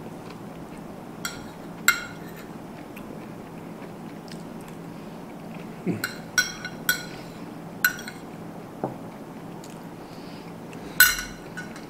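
Cutlery clinking against a plate, about eight sharp ringing clinks spaced irregularly, over a low steady hum.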